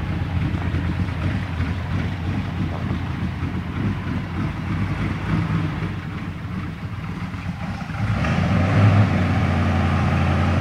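Auburn straight-eight engine with a Swan downdraft manifold idling steadily, then running louder about eight seconds in.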